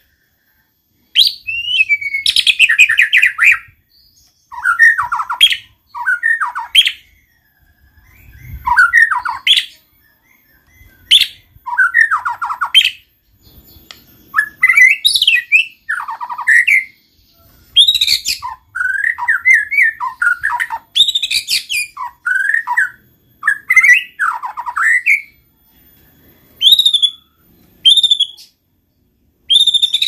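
White-rumped shama in full song: loud, varied phrases of sweeping whistles and rapid trills, each a second or two long, with short pauses between them.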